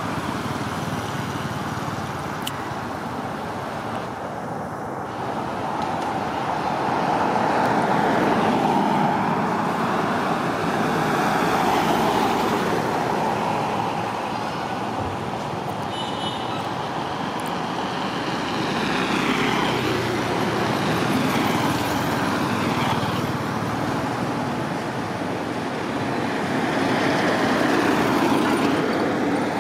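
Road traffic going by: a continuous wash of engine and tyre noise that swells and fades as vehicles pass.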